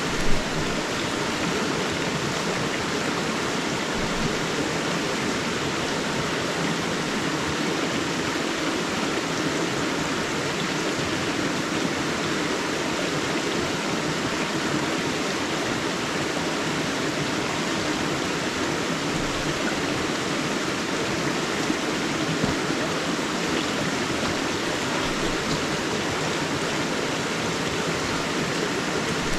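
River water rushing steadily and evenly, with one brief louder pop just after the start.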